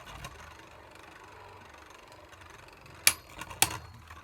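Spinning Beyblade Burst tops: a faint steady whir, then two sharp clacks about half a second apart near the end as the tops collide.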